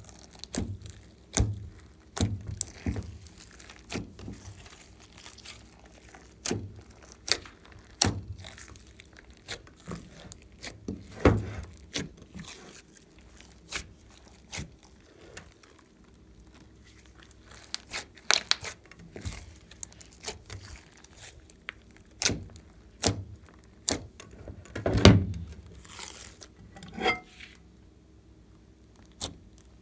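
Hands squeezing, kneading and stretching glossy slime mixed with sequins and glitter: irregular sticky pops, clicks and crackles from trapped air, with a couple of louder squelches along the way.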